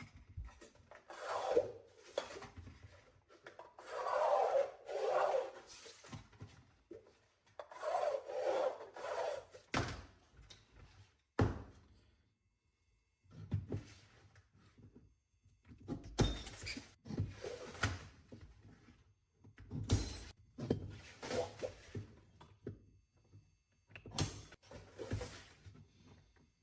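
Repeated scraping strokes across sheet metal, each about a second long, as the one-inch seam allowance is marked out. After about ten seconds these give way to scattered sharp knocks and clicks from tools and metal being handled on the bench.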